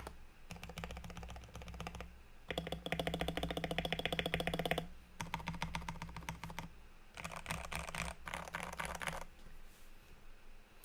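Typing on a Tester 68 custom mechanical keyboard with Gateron Yellow linear switches lubed with Krytox 205g0. It comes in four fast runs of keystrokes with short pauses between them. The run from about two and a half to five seconds in is the loudest, and the typing stops about nine seconds in.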